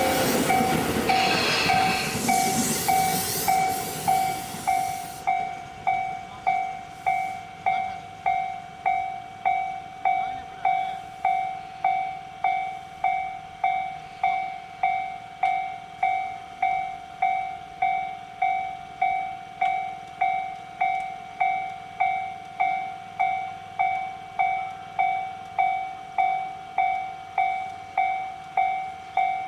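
An electric train rushes over the level crossing for the first four or five seconds and fades. Under it and afterwards, the Japanese level-crossing alarm bell keeps ringing, one even, single-pitched strike repeating a bit faster than once a second.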